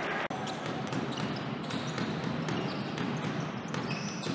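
Basketball game sound on an indoor court: the ball bouncing on the hardwood floor over a steady hall noise, with a few short knocks. A momentary dropout just after the start.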